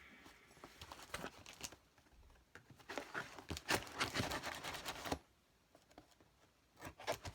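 Packaging being handled: crinkling, rustling and small knocks in two spells, the second longer and louder, then a brief lull before more rustling near the end.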